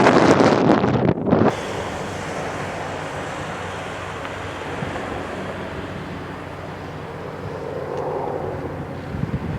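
Wind buffeting the microphone for the first second and a half, then the steady running of an Airbus H225 helicopter's twin turbines and rotor, swelling slightly near the end.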